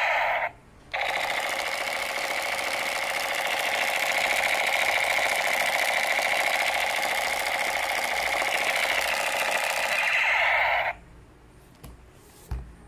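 Electronic firing sound of a battery-powered light-up toy submachine gun playing through its small speaker: a fast, steady machine-gun rattle that breaks off for a moment just after the start, resumes, and cuts off about eleven seconds in. A light knock follows near the end.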